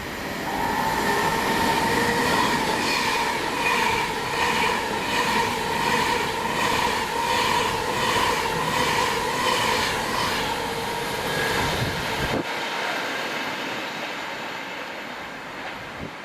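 Electric train passing through at speed without stopping, with a steady whine and a rhythmic clatter of its wheels about twice a second. The low rumble cuts off suddenly about twelve seconds in as the train clears, leaving a fading hiss.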